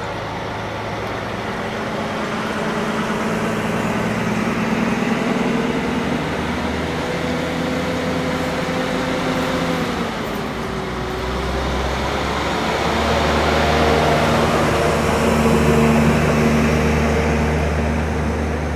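Heavy engine running steadily with a low hum. Its pitch drops about halfway through, and then it gets louder and rises again for a few seconds before easing off near the end.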